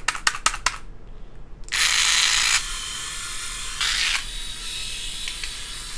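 A rapid run of clicks as the shaver's head and handle are handled, then about two seconds in the rotary head shaver's motor switches on and runs with a high, steady whir, loudest for its first second. The interchangeable cutter head fits this handle poorly but works.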